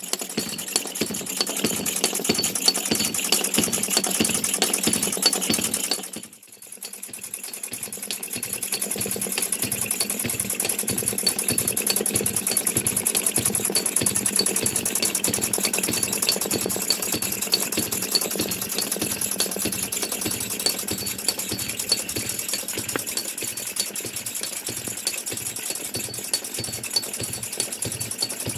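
Several small model Wig-Wag steam engines running together: a fast, even mechanical clatter over a steady high hiss. The sound drops away briefly about six seconds in and then builds back up.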